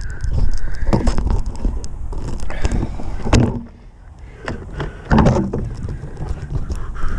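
Rubbing, knocking and crunching noise from a hand-held action camera being handled and carried, with footsteps on gravel. The noise is irregular, with louder knocks about three and a half seconds in and again about five seconds in.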